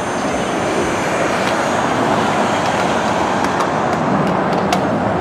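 Lockheed Martin F-35 fighter jet's F135 turbofan engine passing overhead: a loud, steady rushing jet noise.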